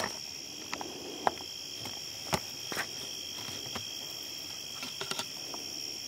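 A steady, high chorus of night insects by a pond. A few short sharp clicks and knocks are scattered through it, the loudest right at the start and about two and a half seconds in.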